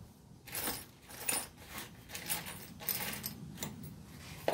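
Light metallic clinks and rattles of small hardware being handled, about two a second and irregular, as a stash of parts is searched for a replacement shaft key.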